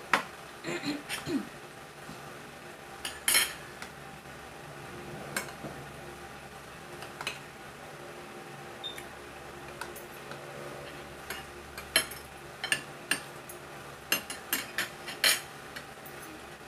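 Fork and spoon clinking and scraping on a plate while eating, in scattered taps, with a busier run of clinks in the last few seconds.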